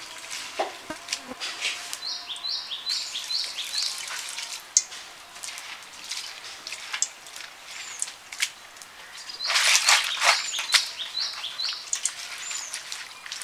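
Wet splashing and squelching as hands rub and squeeze chopped bitter gourd in a plastic colander in a bowl of water, loudest about ten seconds in. Birds chirp throughout, with a quick run of five short repeated notes twice.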